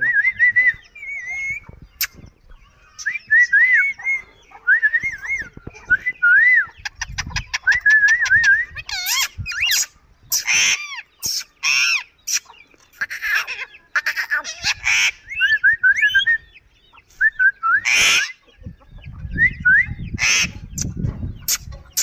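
Rose-ringed and Alexandrine parakeets calling: a string of short, warbling whistle-like chirps broken by several loud, harsh screeches.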